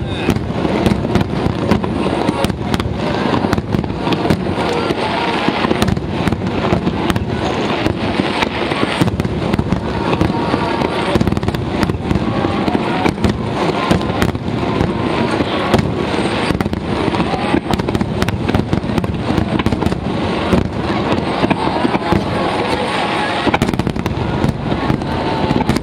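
Massed aerial fireworks display: a dense, continuous barrage of firework shells bursting, many sharp bangs overlapping with no pause.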